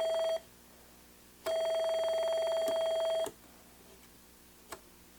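A steady electronic beep tone with a buzzy edge sounds in two stretches: it cuts off just after the start, then returns for nearly two seconds and stops. A few faint clicks fall in the quiet gaps.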